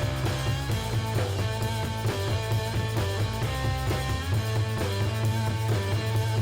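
Background music: guitar-led rock instrumental with a steady bass line.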